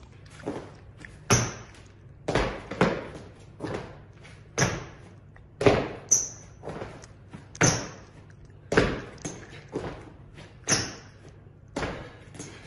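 Repeated thuds of a person doing burpees: hands and feet hitting the floor and jumps landing, about one thud a second, some louder than others.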